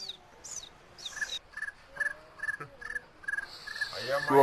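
Outdoor animal calls: a few short, high, downward-sweeping chirps, then a steady series of short repeated notes, about two a second.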